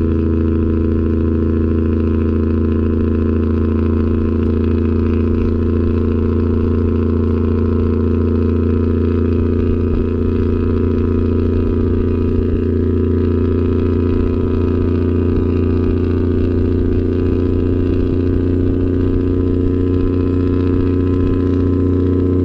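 Caterpillar 3406E diesel engine of a Peterbilt 379, tuned to about 1000 hp, running steadily at highway cruise with a deep, even drone that neither rises nor falls.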